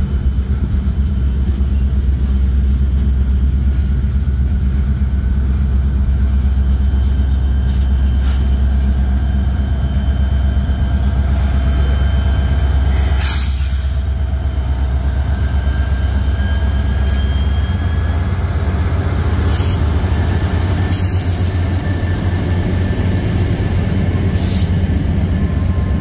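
Long freight train rolling past close by: a steady low rumble of wheels and cars on the rail, with the engine drone of two mid-train Norfolk Southern diesel locomotives as they go by about halfway through, followed by tank cars.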